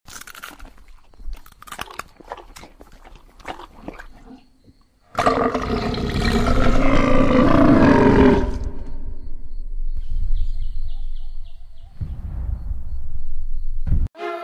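Lion roaring: a loud roar that starts suddenly about five seconds in and lasts about three seconds, trailing off into quieter rumbling. Before it, scattered clicks.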